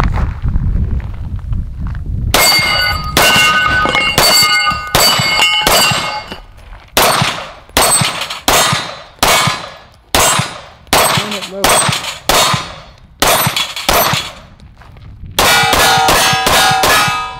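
Pistol fire at steel targets, a plate rack and a Texas Star: about twenty shots, each hit ringing the steel. They come in a steady string of shots with short pauses, and end in a quick burst of about five shots with the steel left ringing.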